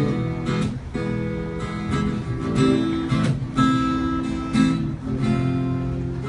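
Acoustic guitar strumming chords in a song's instrumental intro, with a strum every half second to a second and the chords ringing between them.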